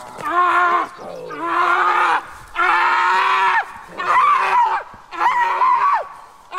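A man in a padded bite suit yelling five times in long, loud cries, each about a second, most falling off at the end: acted cries of pain to make a training dog's bite feel real.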